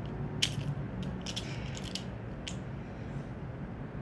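Steel handcuff chain clinking as it is twisted under force: a sharp click about half a second in, a quick cluster of clicks around a second and a half, and one more about two and a half seconds in.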